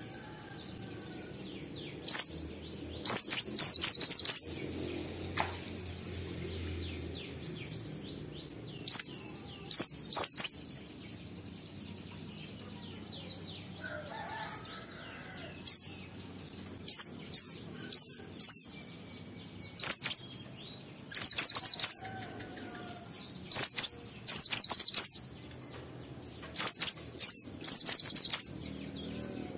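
White-eye (pleci) singing in the 'ngalas' style: clusters of rapid, high-pitched chirping notes, repeated in short phrases every second or two.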